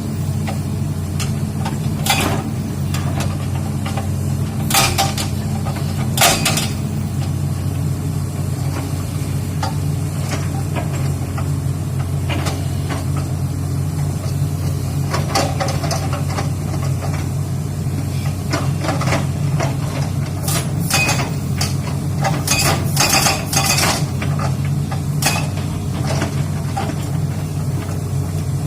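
Excavator's diesel engine running steadily, with irregular sharp metallic clanks and knocks over it, a cluster of them toward the end.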